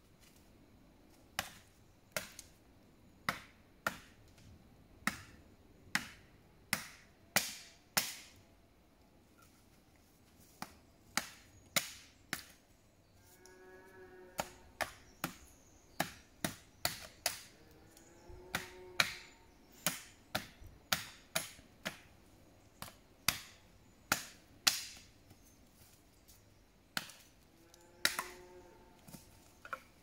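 Wood being chopped by hand: sharp, separate blows of a blade biting into wood, about one or two a second, with two short pauses.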